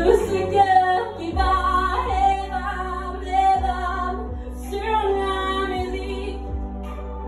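A woman singing a pop song into a handheld microphone over a karaoke backing track with a steady beat.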